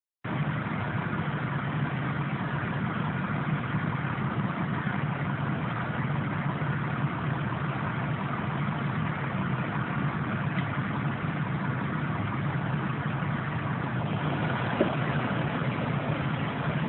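Fire truck engine running steadily at idle, a low, even hum with no change in speed.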